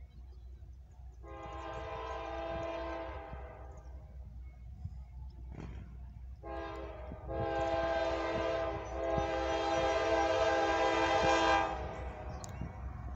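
Approaching CSX diesel freight locomotive's multi-chime air horn sounding its grade-crossing warning: one long blast about a second in, then a longer blast from about six and a half seconds that cuts off just before twelve, over the low rumble of the train.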